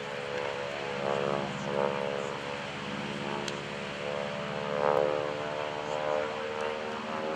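North American SNJ-5 Texan's nine-cylinder Pratt & Whitney R-1340 radial engine and propeller droning in flight, swelling and easing in loudness several times as the plane manoeuvres.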